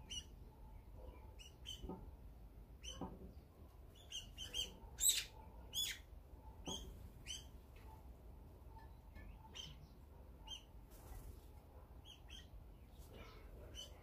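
Small wild songbirds giving short, scattered chirps, with a louder cluster of calls about five seconds in.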